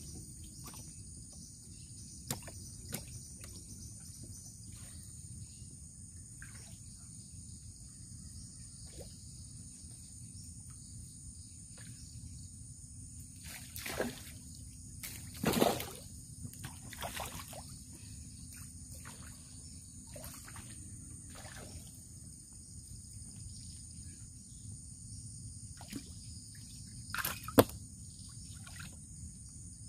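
Light splashes and small knocks of a handline being worked in still water from a boat, with a louder splash about halfway through and a sharp knock near the end. A steady high-pitched hum runs underneath.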